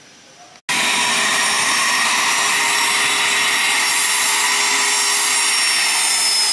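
Small twin-engine business jet's turbofan engines whining as it taxis: a loud, steady high whine that cuts in suddenly under a second in, with one high tone slowly dropping in pitch near the end.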